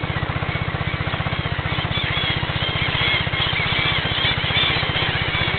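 A small boat's engine running steadily with a fast, even beat. From about two seconds in, birds call repeatedly over it in short, high chirps.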